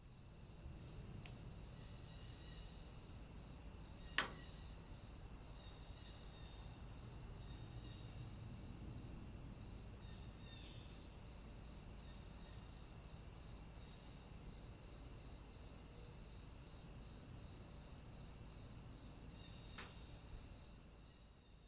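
Insects chirping in a grassy meadow: a steady high, thin trill with a softer chirp repeating a little under twice a second. A single sharp click comes about four seconds in.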